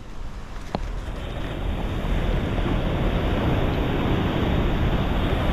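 Wind rushing over the microphone of a moving motorcycle, growing louder over the first couple of seconds, with a single sharp click a little under a second in.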